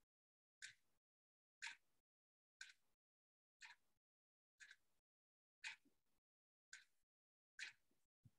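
Near silence, broken by a faint tick exactly once a second, like a clock ticking.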